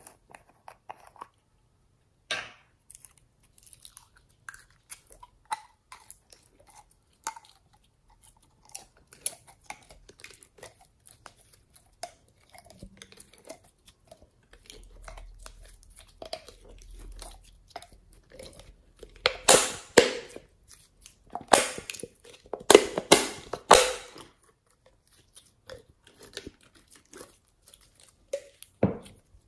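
Sticky clicks and small wet pops of glittery green slime being squeezed out of a soft plastic bottle and handled. About two-thirds of the way through come several much louder crackling squelches.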